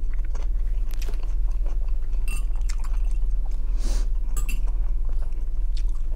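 Close-up chewing of grilled shashlik meat with the mouth closed: a string of small wet mouth clicks and smacks, over a steady low electrical hum.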